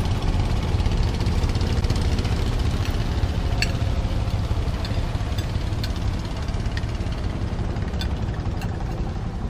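Motorboat engine running steadily with a low, knocking rumble, joined by a few faint light clicks.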